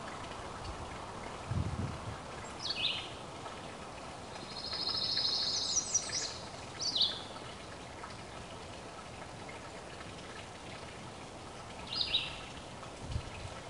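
Wild birds calling: a few short high chirps that slide downward, and about four seconds in a rapid high trill lasting over a second, over a steady background hiss. Two soft low thumps come in, one near the start and one near the end.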